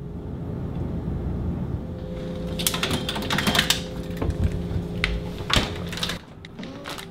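Someone getting a bottle out of a refrigerator: glass and plastic bottles clink and knock against the shelves over a steady low hum, with a heavier knock shortly before the end as the fridge door shuts.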